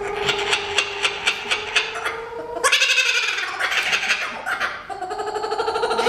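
Laughing kookaburra calling: a run of rapid, rhythmic chuckling notes, about four a second, that turns louder about halfway through and speeds up near the end as it builds into its laughing call.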